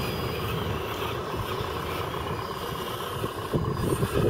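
Radio-controlled rock crawler's electric motor and gears whining steadily as it crawls over loose dirt, with a low rumble and a few short knocks near the end.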